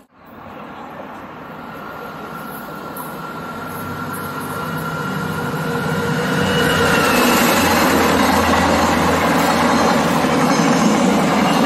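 VIA Rail passenger train led by an EMD F40PH diesel locomotive, approaching and passing close by. The engine and the wheels on the rails grow louder over about six seconds, then stay loud as the coaches go by, with a thin steady whine above.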